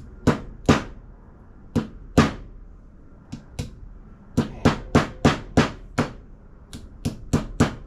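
Hammer blows driving a grease seal into a Wilwood front hub through a socket used as a seal driver. The strikes come in pairs at first, then a quicker run of about a dozen, about three a second; the tight-fitting seal is resisting going in.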